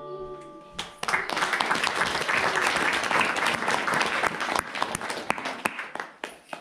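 Audience applauding, starting about a second in as the last notes of a song die away, then thinning out near the end.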